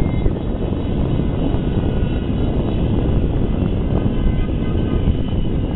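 Steady low rumble of wind on the microphone, with faint distant firework pops.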